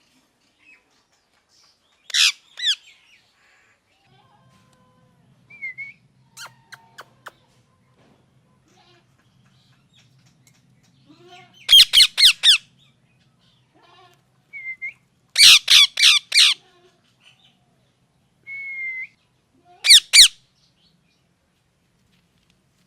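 Parrot squawking loudly in harsh bursts: two single squawks a couple of seconds in, a rapid run of about five around the middle, another run shortly after, and a double squawk near the end. Short whistled notes come between the squawks.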